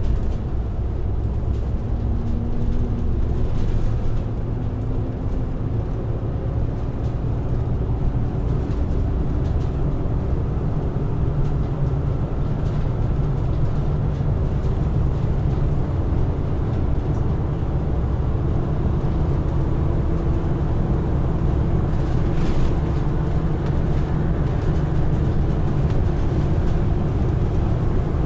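A diesel engine runs steadily with a low, continuous rumble. It holds an even drone with slight wavering in pitch.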